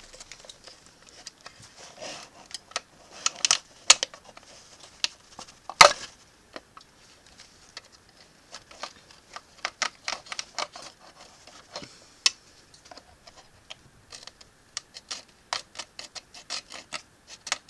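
Handling of a toy's plastic packaging: irregular clicks, crackles and taps, with a few sharper knocks.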